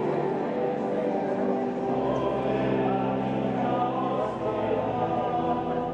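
Men's choir singing a slow liturgical chant, with long held notes that move to new pitches every second or two, sounding in a reverberant stone church.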